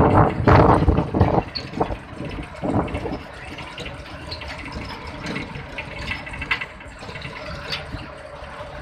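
Wind and road noise from a vehicle driving at highway speed, with loud gusts of wind rushing over the microphone in the first second and a half and again about three seconds in, then a steadier rumble.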